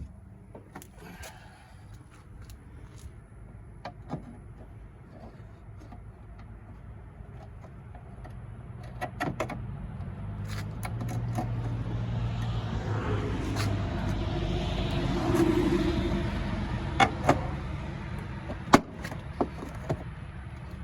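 A vehicle passing by, its low hum building over several seconds and then fading, while sharp clicks and knocks come from the plastic taillight housing and trim being handled and worked back into place.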